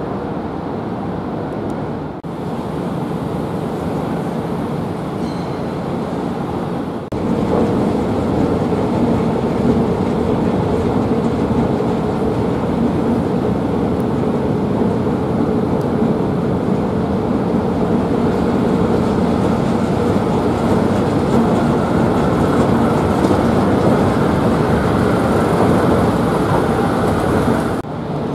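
Madrid Metro series 3000 train at the station: steady running noise with a low electric hum, louder from about seven seconds in.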